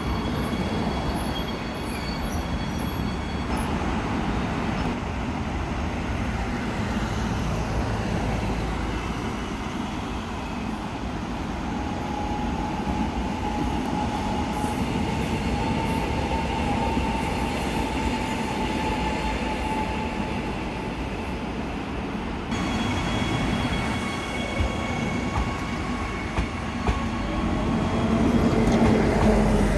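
Electric commuter trains running on the line, a steady rolling rumble with a thin whine in the middle. Over the last few seconds the sound grows louder as another train comes closer.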